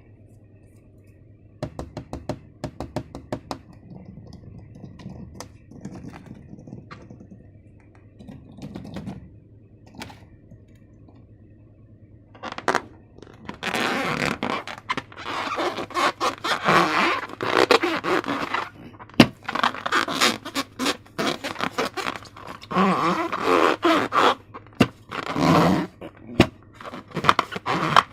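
Hands working balloons and slime materials. Scattered light clicks and taps at first, then from about halfway on a loud run of dense, noisy handling sounds in repeated surges.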